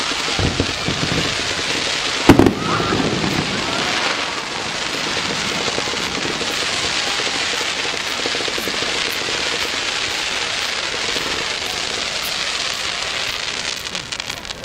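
Fireworks display: a continuous crackling hiss of bursting shells, with one loud sharp bang about two seconds in and a few duller thumps just before it.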